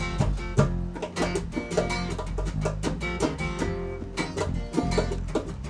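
Band playing an instrumental passage led by guitar, with quick plucked or strummed notes over a steady bass.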